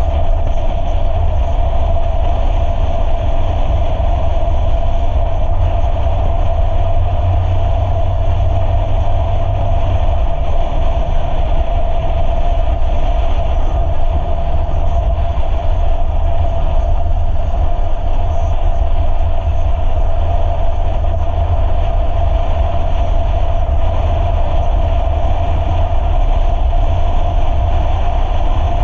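4x4 off-road vehicle driving steadily along a gravel dirt road: a loud, even rumble of engine and tyres with a steady drone over it.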